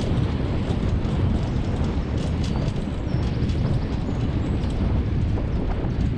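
Wheels of a rig pulled by a team of Siberian huskies rolling over a dirt trail at running speed: a steady, dense rumble, with a few faint ticks and rattles about two seconds in.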